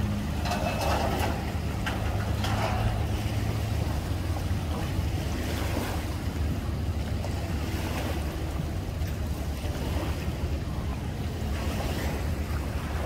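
A steady low engine rumble at a boat ramp, with water and some wind noise on the microphone.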